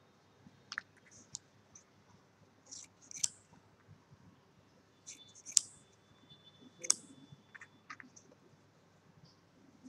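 Scissors cutting a sheet of felt: a handful of sharp, irregularly spaced snips and blade clicks, with light handling of the felt between them.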